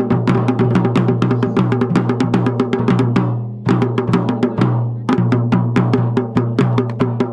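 Garhwali dhol and damau drums playing a fast rhythm, dense strokes over a steady low ringing boom. The drumming breaks off briefly about three and a half seconds in and again about five seconds in.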